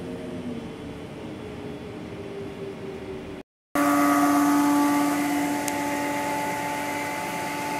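Steady hum inside a stopped Gillig low-floor city bus. After a sudden break about three and a half seconds in, a city bus idling close by, louder: a steady engine hum with a higher whine over it.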